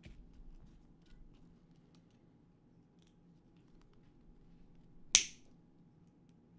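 Faint handling of small FPV drone parts, then a single sharp snap a little over five seconds in.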